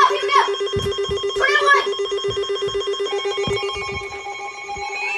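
Emergency Alert System tornado-warning alert tone: a low electronic tone pulsing rapidly, like a ringing phone. Higher steady tones join it about three seconds in.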